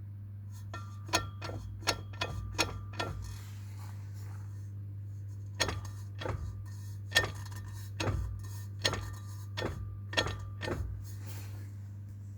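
Porsche Cayenne driveshaft knocking: a run of sharp metallic clicks, about six in quick succession, a pause of a couple of seconds, then about nine more at roughly one every 0.7 s. The knocks are the driveshaft fault being shown, heard over a steady low hum.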